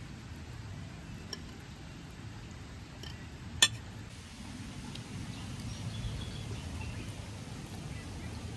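Light clicks of tableware over a steady low background hum, with one sharp clink about three and a half seconds in, the loudest sound.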